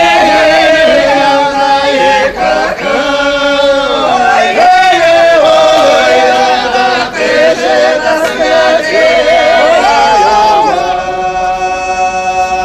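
A choir singing a song in Russian, several voices in harmony with notes that bend and swell; near the end the voices hold one long chord.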